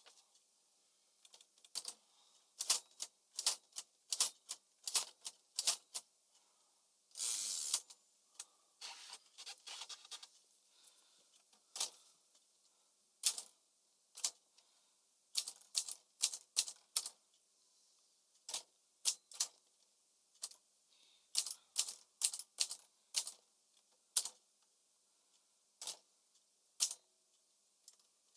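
Smith-Corona Calypso manual portable typewriter being test-typed: irregular runs of sharp key strikes. About seven seconds in there is a longer rasping sound of just under a second, followed by a quick run of lighter clicks.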